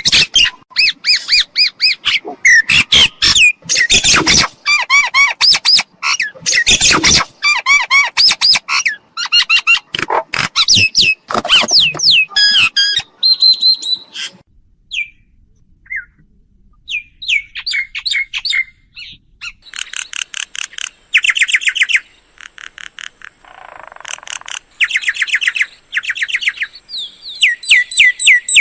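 Mynas calling: loud, harsh chattering and squawks mixed with rapid runs of whistled notes. About halfway through there is a brief lull, followed by quick repeated chirping phrases.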